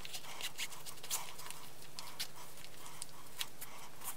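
Shoelaces being pulled tight and tied on a Nike Tiempo Legend IV leather soccer boot: a run of faint, short scratchy rustles, several a second, over a low steady hum.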